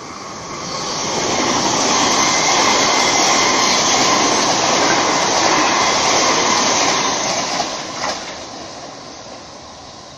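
Two coupled V-set double-deck electric intercity trains passing through the station at speed without stopping: the rail and wheel noise builds over the first second or two, holds steady, then fades as the train goes by, with a short knock at about eight seconds.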